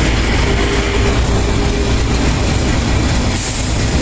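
Steady low rumble of a moving road vehicle's engine and tyres, heard from inside the vehicle, with a faint steady whine in it. A high hiss rises about three and a half seconds in.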